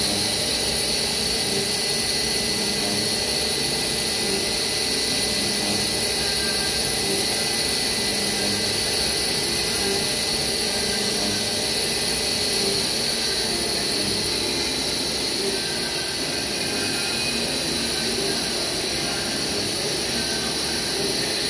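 CNC milling machine cutting a worm screw thread into a polyethylene bar held in a rotary chuck. There is a steady high whine from the spindle and end mill, and the hiss of flood coolant spraying onto the cut.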